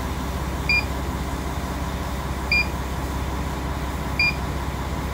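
Mercedes-Benz diesel truck engine idling steadily at about 650 rpm. A short, high electronic beep sounds four times over it, one to two seconds apart.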